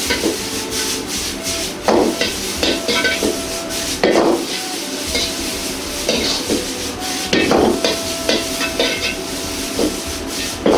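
Metal ladle scraping and clanking against a wok as julienned bamboo shoots stir-fry in oil, sizzling steadily, with louder clanks every couple of seconds. The shoots are being tossed until they are coated all over with oil.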